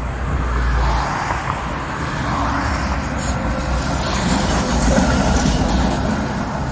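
Tatra T3 tram passing close by, its wheels running on the rails with a steady rumble, loudest about five seconds in as it goes past.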